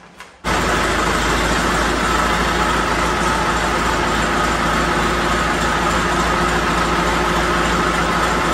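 John Deere 450 crawler dozer's engine running steadily, with a steady whine over the engine note; the sound cuts in sharply about half a second in.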